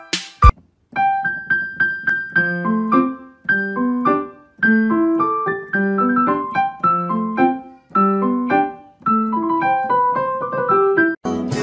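Background music: a light piano melody of single, gently struck notes. Shortly before the end a different, fuller music track cuts in.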